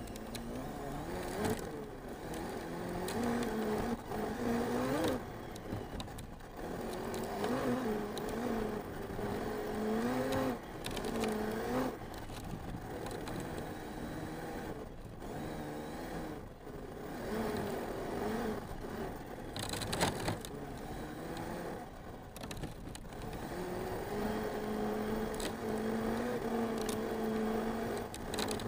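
Arrma Mojave 6S RC truck's brushless motor whining as it drives, the pitch rising and falling with the throttle and holding steadier near the end. A sharp knock comes about twenty seconds in.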